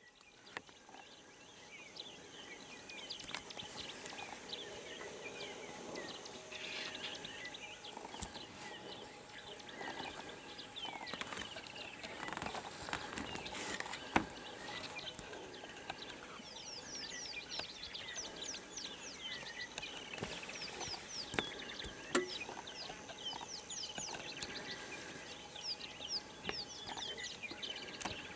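Bush ambience of many wild birds chirping and calling over one another, with quick runs of falling high notes in the second half. Two sharp clicks stand out, one about halfway through and one about three-quarters through.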